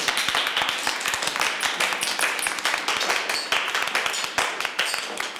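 A small group of people applauding, many hands clapping quickly together.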